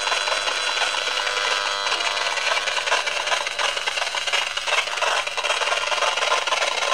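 Handheld EMFields Acousticom 2 RF detector's speaker sounding its audio output: a steady, raspy crackling buzz with clicking. The signals it picks up are strong, with the level LEDs lit near the top of the 0.01–6 V/m scale.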